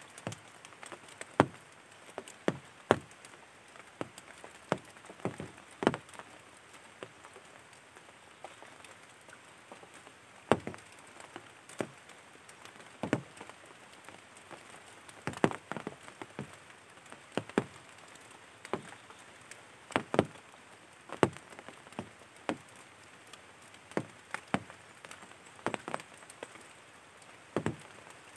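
Sparse, irregular sharp taps, roughly one a second, some louder than others, over a faint steady hiss.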